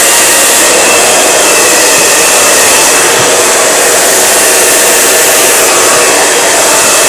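Handheld blow dryer running loudly and steadily at close range, an even rush of air with a faint steady whine.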